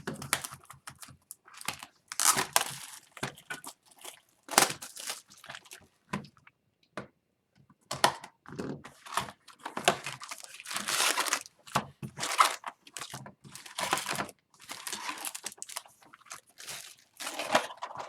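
Plastic wrapping on a hobby box of hockey cards and its card packs being torn open and crinkled by hand: irregular rustling and crackling in uneven bursts with short pauses.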